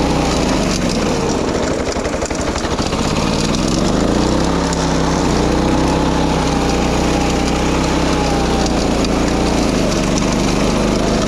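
Small petrol engine of a wing mower running steadily while cutting grass, its pitch dipping and recovering about two seconds in and again near the end.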